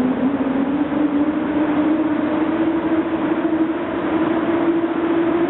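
PKP EP08 electric locomotive pulling a passenger train, its traction motors whining with a pitch that rises steadily as it gathers speed, over the rumble of the train.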